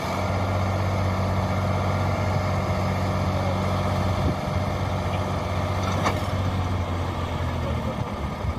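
Tractor diesel engine running steadily under load, driving the hydraulic lift that tips the trailer bed up to dump sand. The engine hum drops away about eight seconds in, and there is a single sharp click about six seconds in.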